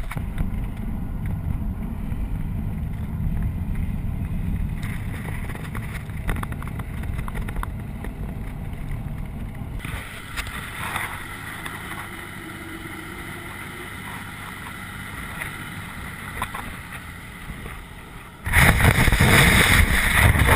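Tow vehicle driving across dry hardpan with wind rushing over a camera mounted on it: a steady low rumble at first, then the wind noise jumps to a much louder roar near the end as speed picks up.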